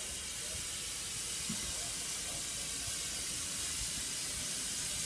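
Isle of Man Railway steam tank locomotive hissing steam steadily as it rolls slowly forward.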